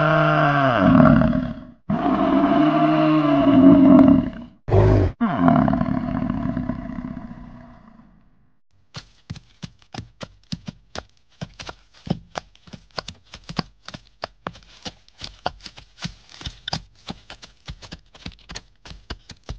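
Bison calf calling: two long, deep bawls that rise and fall in pitch, then a short one, fading out. Then an irregular run of short sharp clicks or knocks, several a second.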